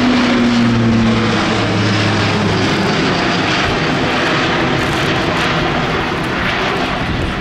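Airbus A400M's four TP400 turboprop engines driving eight-bladed propellers, heard loud and close during a steep climbing turn. A low propeller drone sinks slightly in pitch over the first two or three seconds, then gives way to a steady rush of engine and propeller noise.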